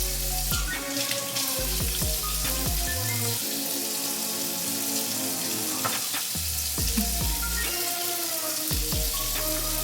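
Background music: held melody notes that change every second or so over deep bass notes, with a steady hiss in the highs.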